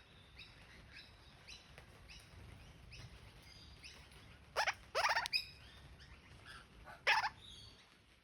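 Parrot calling: a few loud harsh squawks in the middle, two close together and one more a couple of seconds later, over a steady run of faint high chirps.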